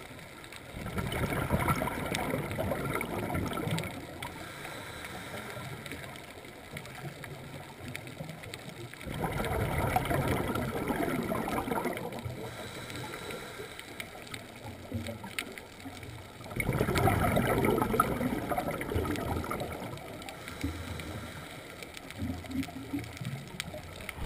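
A scuba diver's regulator underwater: exhaled bubbles bubbling out in three long bursts about eight seconds apart, with quieter noise between breaths.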